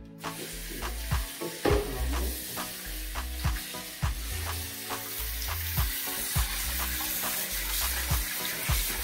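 Tap water running into a metal cooking pot, a steady hiss that sets in about four seconds in, with a few knocks of the pot being handled before it. Background music with a steady beat plays throughout.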